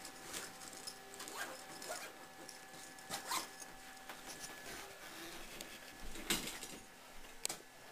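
Quiet rustling and handling noises, with scattered clicks and knocks, the strongest about three and six seconds in. A faint steady high whine runs underneath.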